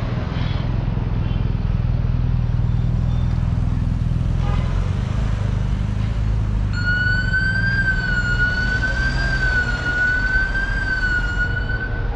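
Steady low rumble of inline-skate wheels rolling on pavement amid street traffic. About seven seconds in, a high, gently wavering tone sounds for about five seconds, then stops.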